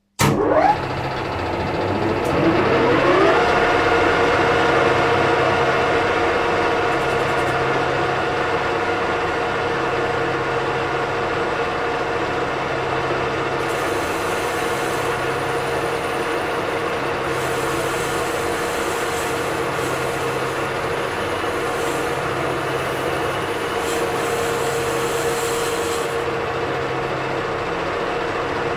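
Metal lathe switched on and spinning up: a whine rises in pitch over the first few seconds, then the lathe runs steadily at speed, set to about 630 RPM, with its chuck turning freely.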